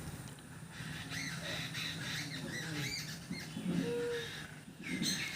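Ducklings peeping: a run of short, high chirps.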